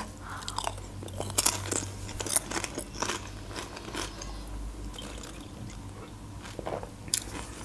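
Crunching and chewing of a potato chip, sharp crackly crunches in the first few seconds, then quieter sounds of drinking beer from a glass bottle.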